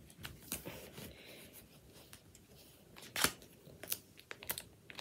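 Footy trading cards and their packaging being handled: scattered light clicks and rustles, with a sharper click about three seconds in.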